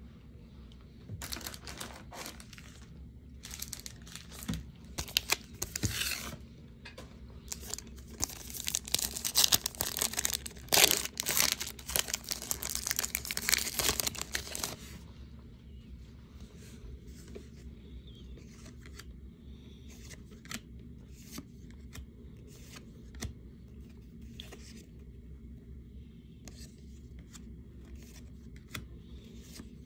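Foil wrapper of a trading card pack being torn open and crinkled, in a run of crackling that peaks in the first half. After that it drops to light scattered clicks of the cards being handled.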